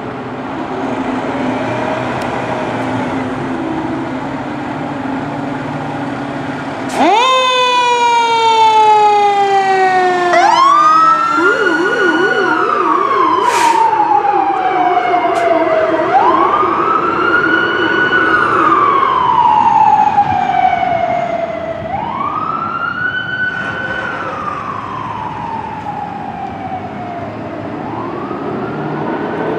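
Fire engine's diesel engine running as it pulls out, then its sirens start abruptly about seven seconds in. One siren spins up sharply and winds down slowly, then a wail rises and falls about every five to six seconds, with a fast low warble under it for a few seconds.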